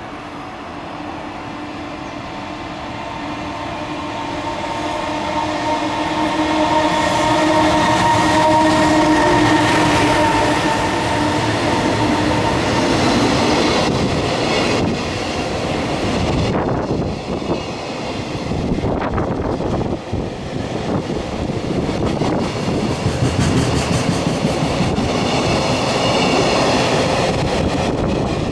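Electric train moving off: a steady motor whine for about the first twelve seconds as it grows louder, then the loud rushing and clatter of wheels on rails as the cars run past.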